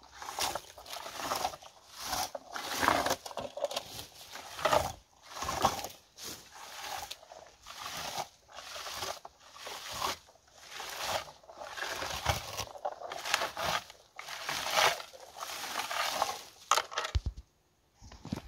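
Berry-picking scoop raking through wild blueberry bushes: repeated rustling, scraping strokes of twigs and leaves against the comb, irregular, about one stroke every half second to a second, breaking off briefly near the end.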